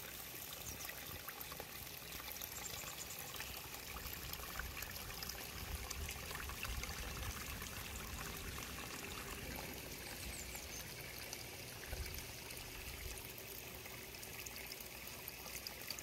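Water trickling and flowing through a small irrigation ditch beside flooded rice paddies, a steady gentle running sound.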